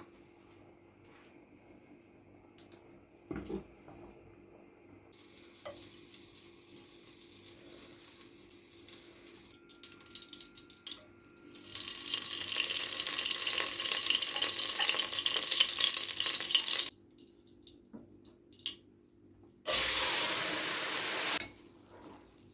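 Water running steadily from a kitchen tap for about five seconds and stopping abruptly, then a shorter, louder rush of running water near the end. Light clattering of kitchenware comes before it.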